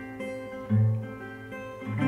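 Mahogany acoustic guitar picked with the fingers: bass notes and chord tones plucked and left ringing, with a strong low bass note just under a second in.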